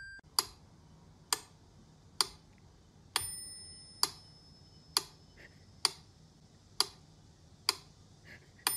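Mechanical pendulum metronome ticking steadily, just over one tick a second. A bell rings on every sixth beat, twice.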